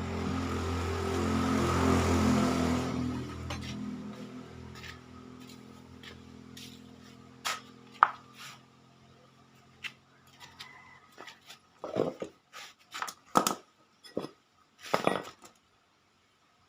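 Suzuki Satria two-stroke motorcycle engine running, its sound falling away over the first few seconds; the owner complains that the engine sounds rough. After that come separate metallic clinks and knocks, like tools being handled, the loudest a few seconds apart near the end.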